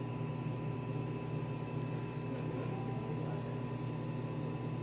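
Steady low hum of room tone, with a thin, constant higher tone above it.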